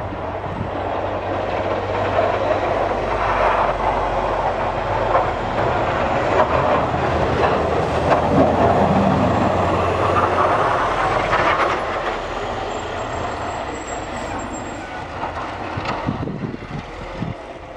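Large municipal snow plow truck passing: its turbo diesel engine running while the plow blade scrapes and rattles along the snow-covered road. The noise builds as the truck comes near, peaks about halfway through, then fades as it moves away.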